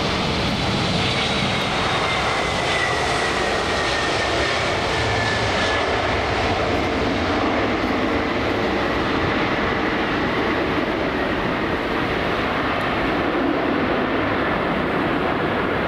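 Jet airliner's engines running loudly and steadily as it comes in to land, with a high whine that slowly falls in pitch.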